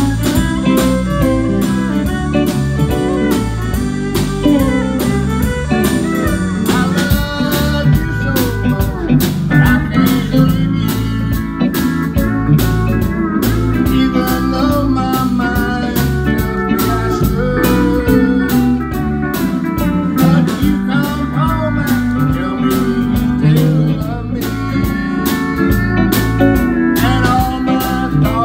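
Live country band playing a song: fiddle leading at the start over pedal steel guitar, electric bass and drums keeping a steady beat, then a man singing into a microphone.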